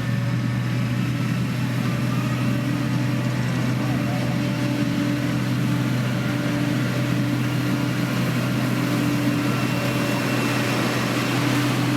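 Heavy diesel engine of road construction machinery running at a steady speed, a constant low hum with no change in pitch.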